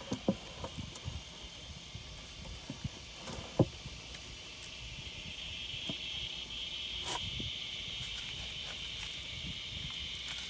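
Steady outdoor insect chorus, a high buzzing that grows louder about halfway through, with a few scattered light knocks and taps, the sharpest about three and a half seconds in.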